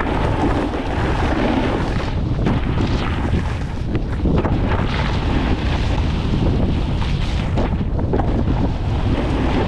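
Wind buffeting the camera microphone of a moving snowboarder, mixed with the steady scrape of the snowboard over crusty, icy snow.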